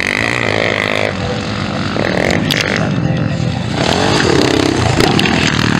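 Motocross dirt-bike engines revving hard, with more than one bike at once, the pitch climbing and dropping as the riders open and close the throttle.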